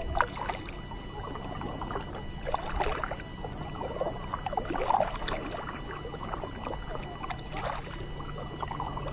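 Kayak paddle dipping into calm lake water, with splashes roughly every two and a half seconds and water trickling and dripping between strokes.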